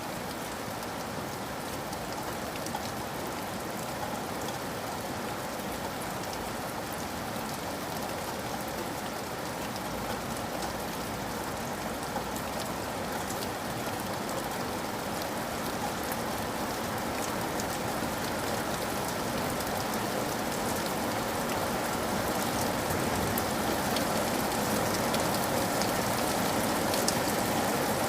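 Steady rain falling: a dense, even hiss with scattered individual drops ticking through it, slowly growing louder.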